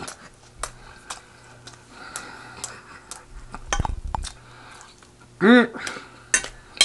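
Close-miked eating sounds: scattered sharp clicks and smacks from chewing and utensils on dishes, with a low thump about four seconds in and a brief vocal sound from the eater about five and a half seconds in.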